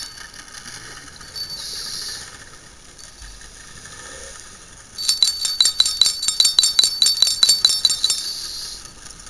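Scuba diver's regulator breathing heard underwater: a short hiss of inhalation about one and a half seconds in, then from about five seconds in a run of exhaled bubbles, a rapid rattling crackle lasting about four seconds.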